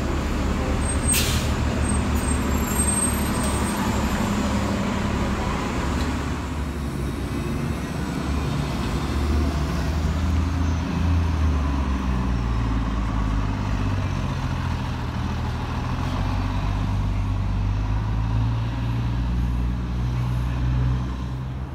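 City transit buses running and moving off in street traffic, their low engine note shifting in pitch as they pull away. A short, high hiss comes about a second in.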